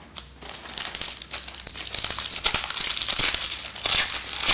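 A trading-card pack wrapper crinkling and tearing as it is opened by hand: a dense run of crackles that starts just after the beginning and grows louder.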